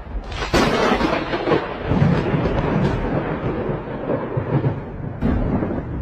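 Thunder rumbling, with sharp loud cracks about half a second in and again near the end.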